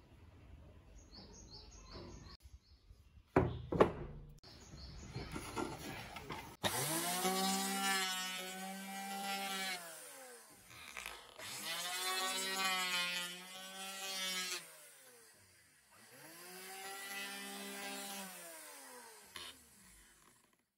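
Restored KREX electric hand planer switched on three times, each time spinning up, running while planing a wooden board, and winding down as it is switched off. A couple of knocks come about three to four seconds in, before the first run.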